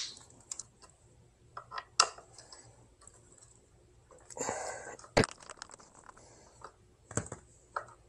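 Scattered light clicks and small metal knocks from a hex key and hands working the bolts of an electric scooter's rear brake caliper. There are sharper knocks about two and about five seconds in.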